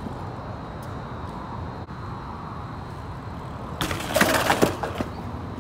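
BMX bike landing on pavement from a drop about four seconds in: a sudden loud clatter of tyres and frame hitting the ground with a brief scrub, lasting under a second. A steady low background rumble runs underneath.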